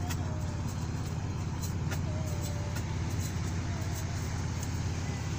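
Steady low rumble of a slowly moving vehicle, heard from on board, with faint clicks scattered through it.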